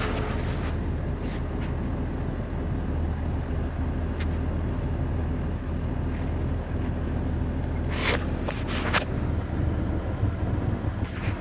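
Vehicle engine idling steadily with a low, even 'brap-brap' rumble, heard from inside the cab. A few short clicks come about two-thirds of the way through.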